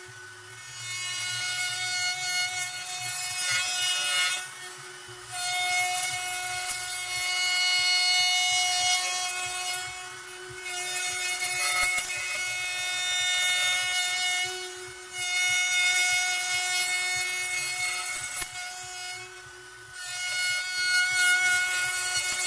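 Makita compact router's motor running with a steady high whine while its bit cuts a circle in wood. The cutting noise swells and eases in passes of about four to five seconds, and the motor's whine holds throughout.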